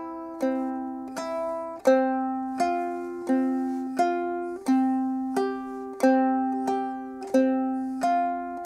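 Pineapple-shaped ukulele fingerpicked slowly, thumb and index alternating single notes: the open third and second strings, then the second string fretted at the first and third frets. The notes come evenly, about three every two seconds, each ringing and dying away under the next.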